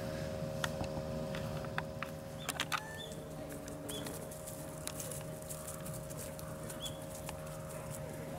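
A steady low mechanical hum, with a few sharp clicks in the first three seconds and a short high chirp about three, four and seven seconds in.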